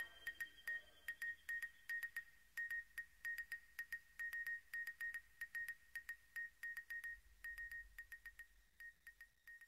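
Faint electronic Morse-code beeping closing out the soundtrack: a single high tone keyed in short and long pulses, each starting with a click. The pulses thin out and fade toward the end.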